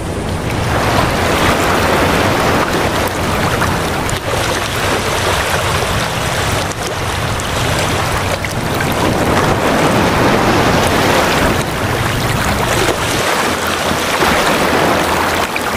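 A passenger ferry's wake rushing and churning alongside the hull, over a steady low engine drone, with some wind on the microphone.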